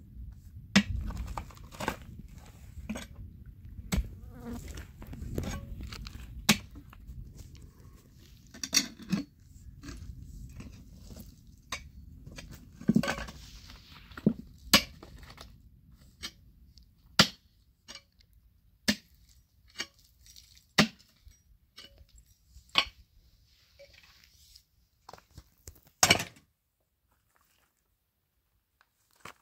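Pickaxe striking hard, stony ground over and over, a sharp knock of metal on rock every second or two. The strikes stop a few seconds before the end.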